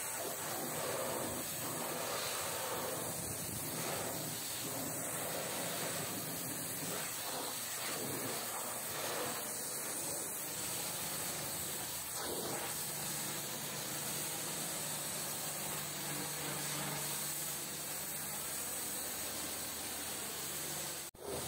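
High-pressure water jet spraying steadily onto a truck, a constant hiss. A low steady hum joins about halfway through.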